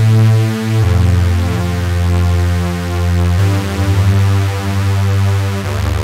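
Cherry Audio Quadra software synthesizer, an emulation of the ARP Quadra, playing a factory preset: held chords over a strong bass, the notes changing about a second in, again a little past halfway, and near the end.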